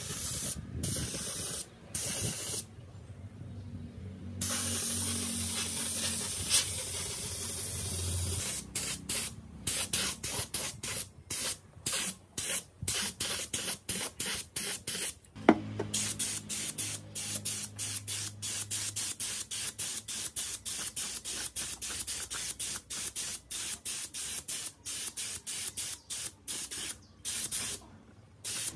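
A pressurised spray hissing steadily, then in many short bursts with brief gaps from about a third of the way in.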